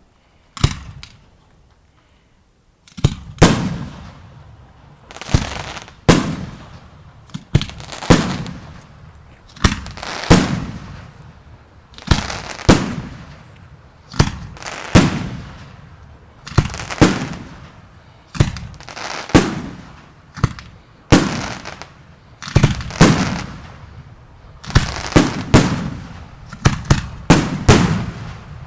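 Fireworks shells bursting in the air, each a sharp bang with an echo trailing off. One bang comes shortly after the start, then after a short gap a steady run of bursts about every one to two seconds, coming faster near the end.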